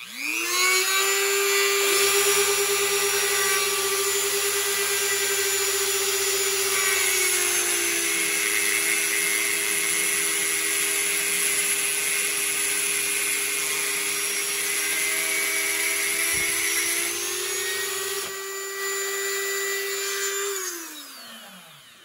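A Dremel rotary tool whines at high speed while its stone grinds into the spinning end of a hardened-steel air chisel bit, with a cordless drill humming underneath from about two seconds in until about eighteen seconds. The Dremel's pitch dips a little in the middle and winds down near the end.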